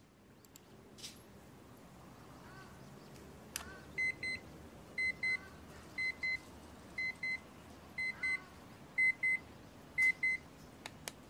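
An electronic beeper sounding a high-pitched double beep about once a second, seven times, starting about four seconds in. A few faint, short falling chirps come before it, over a quiet outdoor background.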